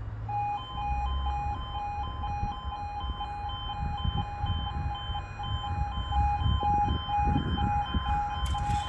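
UK level crossing E2S warning alarm sounding at the start of the crossing's lowering sequence. It starts a moment in and switches rapidly back and forth between two tones. A low traffic rumble runs underneath.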